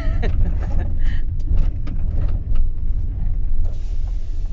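Van engine and road rumble heard from inside the cab while driving slowly, a steady low drone. A few light clicks come about a second in.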